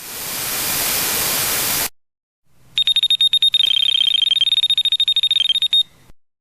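A carp-fishing bite alarm goes off in a rapid string of high electronic beeps that speed up until they are almost continuous. This is the sign of a fish running hard with the line, a "ripping run". Before it comes a burst of rushing noise lasting about two seconds that cuts off suddenly.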